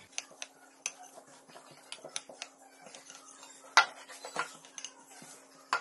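Wooden rolling pin rolling and knocking on a floured wooden board as dough is rolled out, with scattered light clicks and taps and one louder knock about four seconds in as the pin is set down.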